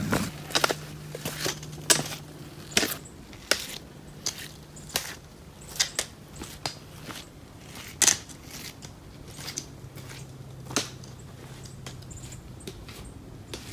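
A hiker's footsteps on a rocky trail: irregular sharp crunches and clicks, roughly one every half second to a second.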